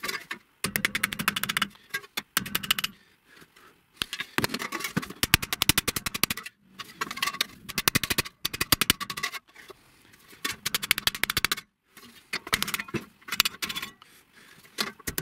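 Rapid runs of hammer blows on galvanized sheet steel, a steel hammer and a wooden mallet by turns, folding over the corner flaps of a small sheet-metal tray. The taps come in quick bursts of a second or two with short pauses between.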